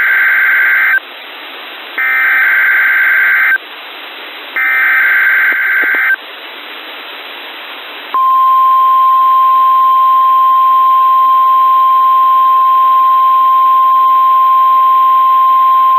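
NOAA Weather Radio SAME header for a Required Weekly Test: three bursts of digital data tones, each about a second and a half, with radio static hiss in the short gaps; the first burst is already under way. About two seconds after the last burst, the steady 1050 Hz weather radio alert tone starts and holds.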